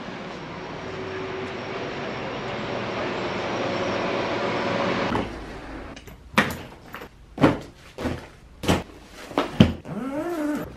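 A steady rushing noise that slowly grows louder, then a hard-shell suitcase handled on a bed: four sharp knocks and clunks, and a zip pulled near the end.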